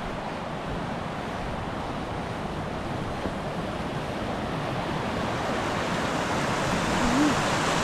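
Rushing water of a moorland river: a steady rush that grows gradually louder toward the end.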